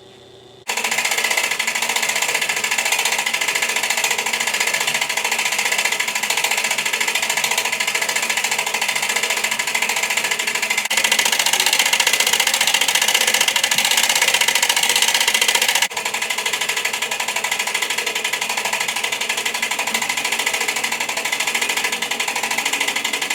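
Steady mechanical whirring that starts abruptly about a second in and runs on evenly, with a slight change in tone partway through.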